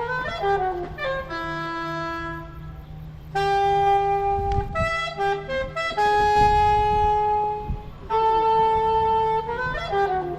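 Saxophone playing a slow melody of long held notes, in phrases a few seconds long with short breaks, sliding into each phrase's first note.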